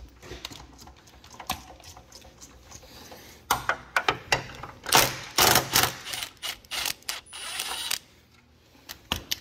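Milwaukee cordless impact driver hammering bracket bolts loose on a radiator, in several short rattling runs through the middle of the stretch, with a few light metal clicks near the end.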